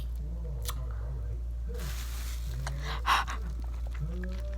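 Mouth noises of someone eating sour candy: a few small clicks, a breathy rush about two seconds in and a short, louder noisy burst about three seconds in, over a steady low electrical hum.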